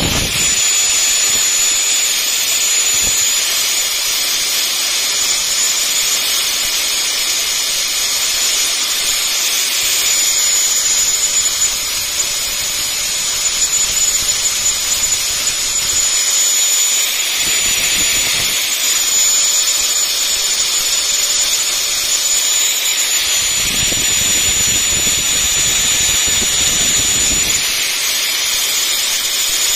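Angle grinder running with a steady high-pitched whine, its abrasive disc grinding the steel jaws of wire-cutting pliers with a continuous hiss, reshaping a broken cutting tip.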